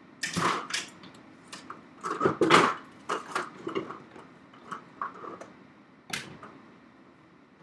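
Scattered knocks, clunks and rustles of someone handling objects off-screen in a small room. The loudest come about half a second and two and a half seconds in, and a sharp click comes about six seconds in.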